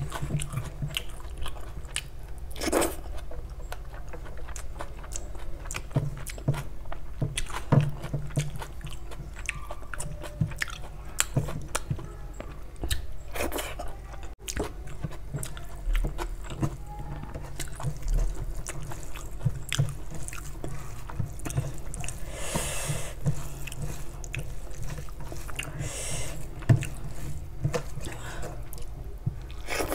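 Close-miked chewing and mouth sounds of a person eating rice and egg curry by hand: a steady run of short wet clicks and smacks, with fingers mixing rice and gravy in a steel plate.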